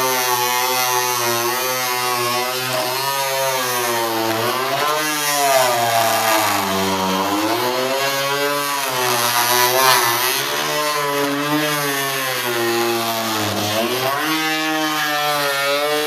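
Oscillating multi-tool (Fein Multimaster) cutting through mahogany planking: a continuous buzzing whose pitch sags and recovers several times as the blade loads in the wood.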